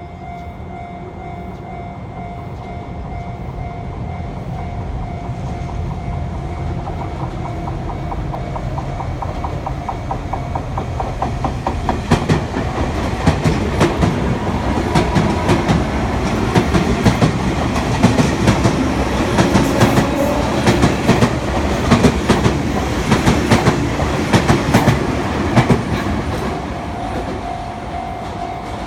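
Sotetsu Line train approaching and passing over a level crossing. A rumble builds for several seconds; from about twelve seconds in the wheels clack rapidly over the rail joints, and the sound fades near the end. The crossing's warning bell rings in a steady repeating tone, heard plainly at the start and again near the end.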